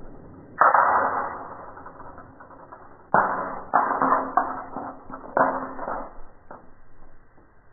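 An air gun shot about half a second in, then a quick run of five or six sharp cracks and knocks a few seconds later, each dying away fast.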